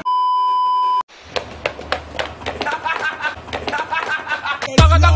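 A loud, steady electronic beep tone for about a second, then a voice talking over a scatter of sharp clicks. Near the end, music with a heavy bass beat starts.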